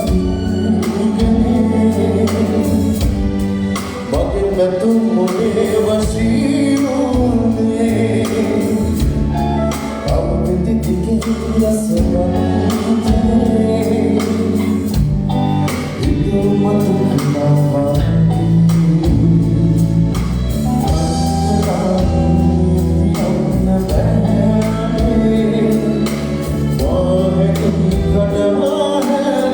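A song performed by a band, with singing over bass notes and a steady beat.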